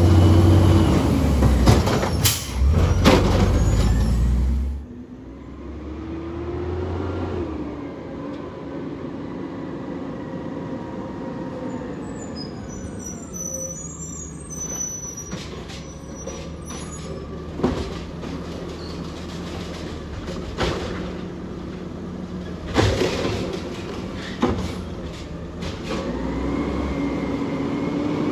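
Automated side-loader garbage truck running loud while its arm tips a wheeled cart into the hopper, with two knocks of the cart being shaken out. Then a garbage truck's diesel engine running as it drives slowly toward the camera, with several short air-brake hisses and the engine revving up near the end.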